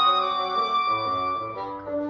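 Double reed ensemble of oboes, English horn and bassoons playing together. A high note is held for about a second and a half over sustained lower parts, then the parts move to new notes.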